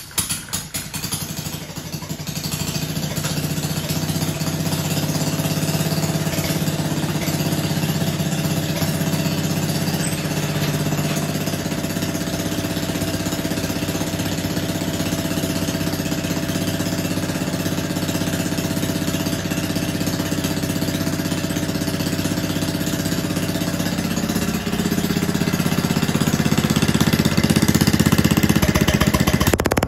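Kohler K301 single-cylinder engine running on a test stand without a muffler, a steady open exhaust note. It gets louder a few seconds before the end.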